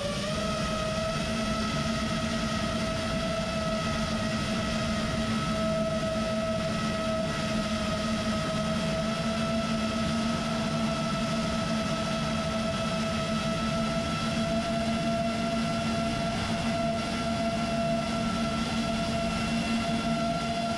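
A 5-inch FPV quadcopter's brushless motors and props whine at a steady cruise throttle, the pitch creeping slowly upward, over a rushing noise.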